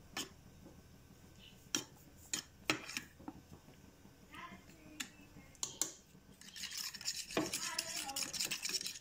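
A metal fork beating raw eggs in a bowl, its tines clinking against the side of the bowl. The first six seconds hold a few scattered clinks. From about six and a half seconds in, the beating speeds up into fast, steady clinking.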